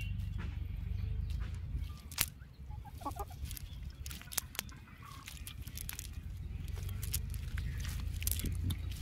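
Hands working fish out of a wet nylon cast net: rustling with scattered sharp clicks and snaps, over a steady low rumble.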